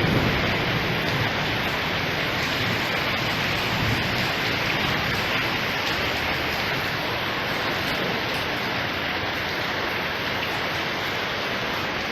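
Steady heavy rain falling. A low rumble of thunder dies away in the first second.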